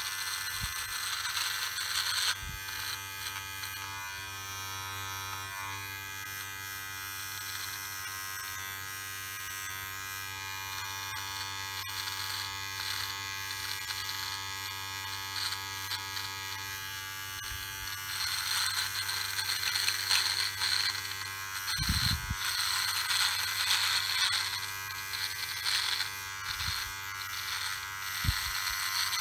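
Manscaped Lawn Mower 3.0 electric trimmer running with a steady motor buzz as its blade cuts through beard stubble on the neck. The cutting noise gets stronger about two-thirds of the way in, and a few dull knocks come near the end.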